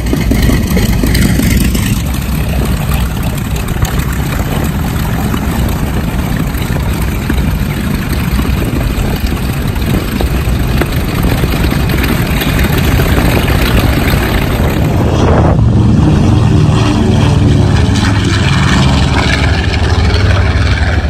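Aircraft engines running loud on the ramp: a twin radial-engine propeller warbird, then, after a change about two-thirds of the way in, a jet trainer taxiing.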